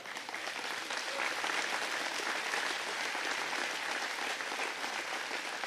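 A large crowd applauding. The clapping swells over the first second, holds steady, then tapers off near the end.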